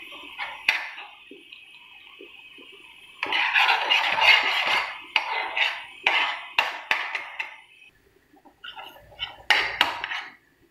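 A spoon stirring foaming sugar syrup in a small non-stick frying pan, scraping and clinking against the pan. The stirring is lighter at first and gets louder and busier from about three seconds in, with a few sharp clinks. After a short pause near the end it scrapes again and gives one loud clink.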